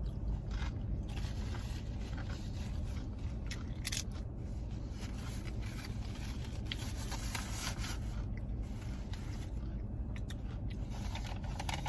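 Eating sounds: food scraped and scooped from a takeout burrito bowl by hand, with crinkly rustling, small clicks and chewing.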